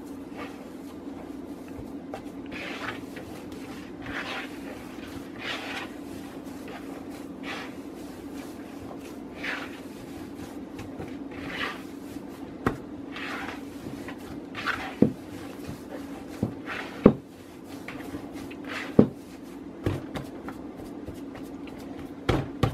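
Hands kneading and squeezing mashed potato in a plastic bowl: soft squishing about every second or so, joined from about halfway by a few sharp knocks, which are the loudest sounds. A steady low hum runs underneath.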